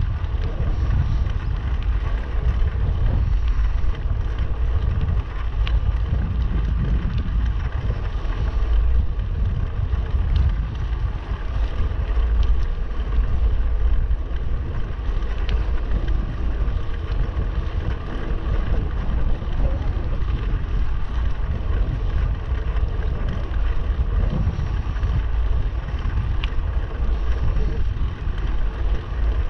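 Wind buffeting the microphone of a camera riding along on a moving bicycle: a steady low rushing that swells and dips, with a few faint ticks.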